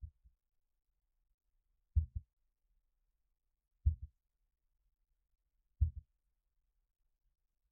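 Slideshow sound effect: a low double thump, like a heartbeat, repeats four times about two seconds apart, each one marking a new bullet point appearing on the slide.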